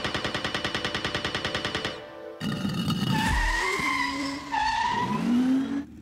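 Cartoon sound effects: a fast, even rattle of about a dozen clicks a second for about two seconds. After a short break comes a race car engine revving, with tyres squealing and the engine note rising near the end.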